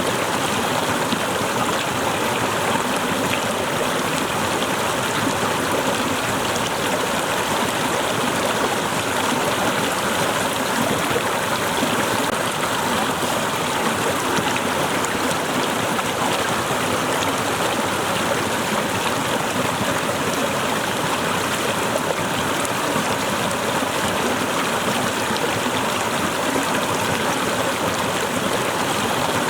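Waterfall: water cascading and splashing in a steady, even rush that does not change.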